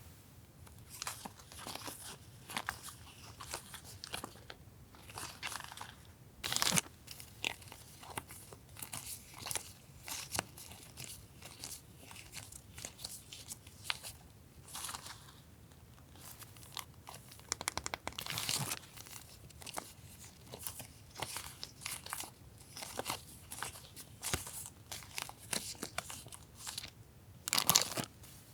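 Paper stationery and its packaging being handled: rustling and crinkling with light taps, and a few louder crinkles about seven, eighteen and twenty-eight seconds in.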